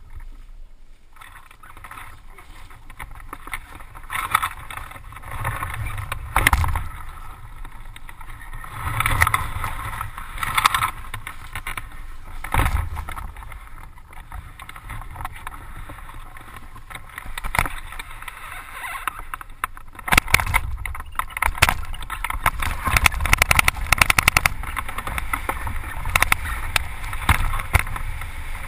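Wind buffeting a glider-mounted camera's microphone as a hang glider launches and flies, in irregular gusts that grow louder and more constant in the second half.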